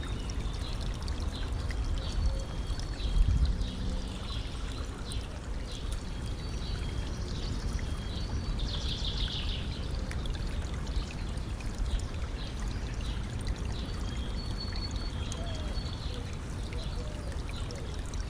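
Stream water trickling and flowing steadily, with small birds chirping and singing over it, including a quick flurry of notes about halfway through. A brief low rumble rises out of the water a few seconds in.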